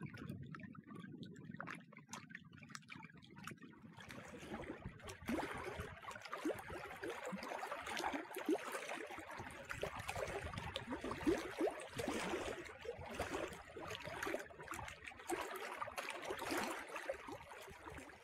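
Lake water lapping and gurgling against shoreline rocks in a busy, irregular splashing that starts about four seconds in. Before that there is only a low rumble.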